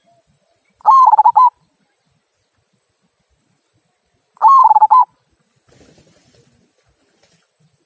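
Local zebra dove (perkutut) of the 'kung' voice type cooing: two short, warbling coo phrases about three and a half seconds apart.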